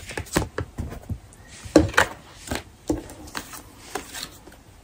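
Tarot cards being handled and laid down on a surface: an irregular run of sharp taps and slaps with paper rustling, the loudest slap a little under two seconds in.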